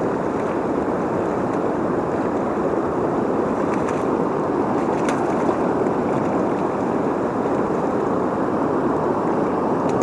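Steady rush of water pouring through a flooded dam, an even, unbroken roar of fast current.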